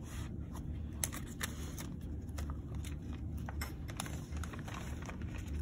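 Paper pages of a lab manual being leafed through: light rustles and clicks scattered throughout, over a steady low room hum.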